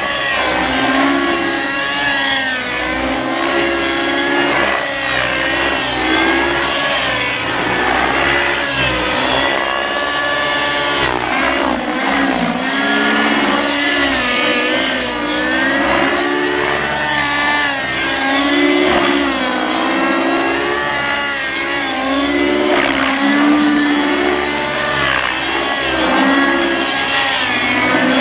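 Nitro RC helicopter's two-stroke glow engine and spinning rotor blades in flight, the engine pitch rising and falling over and over as the model is thrown through aerobatic manoeuvres.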